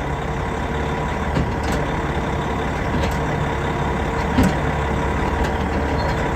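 Heavy diesel machinery running steadily while a log jammed in a wood chipper is pulled free with a chain. There are several sharp cracks and knocks, the loudest about four and a half seconds in, as the log crunches.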